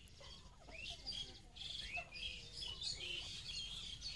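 Birds chirping: many short, high chirps in quick succession, often overlapping.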